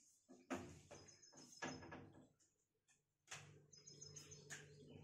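Faint rubbing strokes of a duster wiping marker off a whiteboard. A bird chirps in short, rapid trills in the background twice.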